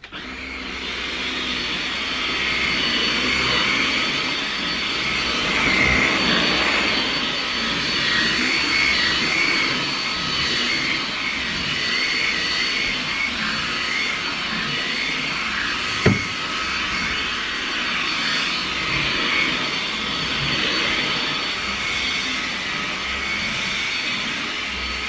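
Wertheim Evolution handstick cordless vacuum running, starting up abruptly and holding a steady motor whine with an airy rush while it cleans carpet. A single sharp knock sounds about two-thirds of the way through.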